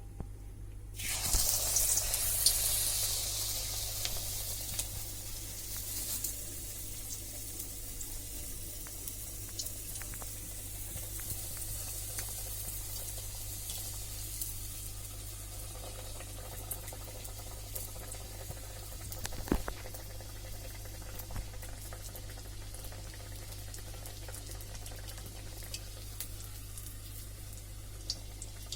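A wheat-flour momo deep-frying in hot oil: a loud sizzle flares up about a second in as it goes into the oil, then eases to a steady sizzle. One sharp knock partway through.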